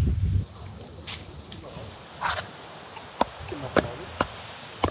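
Faint insects chirring, with a short rustle and then four sharp clicks, as of something being handled. A low rumble cuts off about half a second in.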